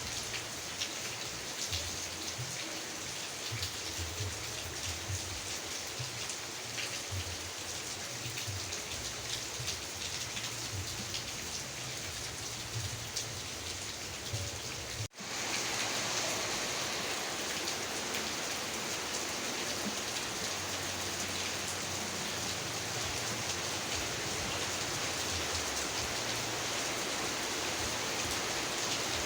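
Steady rain: a dense hiss with drops pattering throughout. About halfway through the sound drops out for an instant, then resumes as a smoother, brighter hiss.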